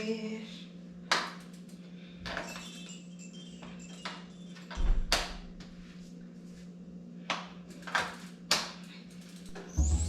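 Bicycle on an indoor trainer running with a steady low hum, with a series of sharp knocks and clicks scattered through it, about seven in all.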